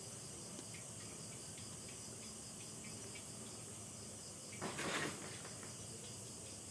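Faint, steady insect chirring with light ticks several times a second, broken about five seconds in by a brief rustling scrape, the loudest sound here.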